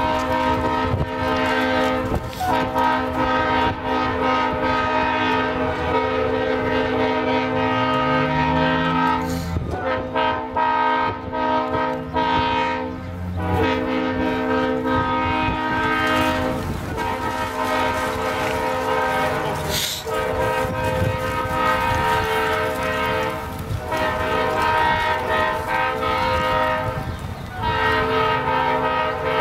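Diesel locomotive's multi-note air horn sounding in long, loud blasts, several notes together, broken by short gaps every few seconds.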